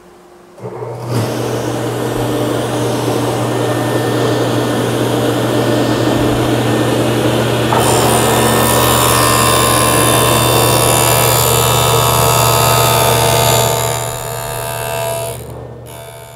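Table saw with a stacked Freud dado set, starting up about half a second in and spinning up to a steady run. From about eight seconds the dado stack cuts a 3/4-inch-wide groove in a plywood board, and the noise grows louder and harsher. The noise eases near the end as the cut finishes.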